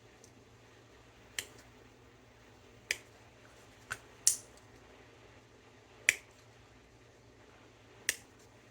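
Sprue cutters snipping plastic model-kit parts off a sprue: six sharp, separate clicks at uneven gaps.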